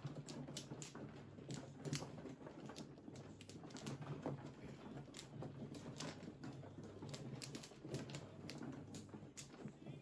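Mahjong tiles clicking and clacking irregularly against each other and the felt as they are drawn from the walls and pushed into neat rows, over a steady low hum.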